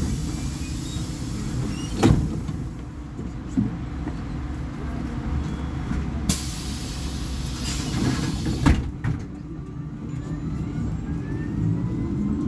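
Volvo B58 bus's six-cylinder diesel engine running steadily as the bus drives, with a few sharp knocks and rattles from the body. Near the end the engine pitch rises as it pulls away or accelerates.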